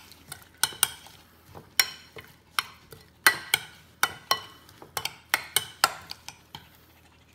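Stainless steel spoon stirring chopped mango salsa in a glass bowl, clinking against the glass in a string of irregular sharp taps.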